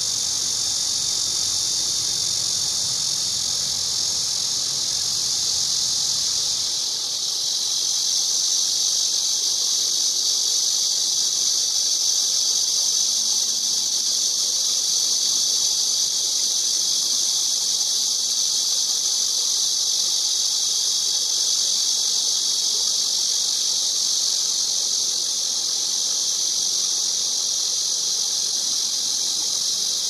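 Cicadas buzzing: a continuous, steady, shrill drone without breaks, a harsh-sounding chorus rather than a melodic song.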